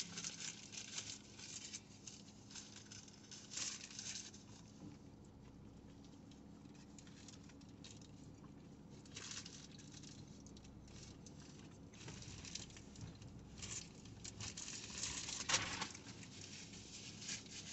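Soft, scattered rustles and crinkles of paper sandwich wrappers being handled while eating, over a faint steady low hum.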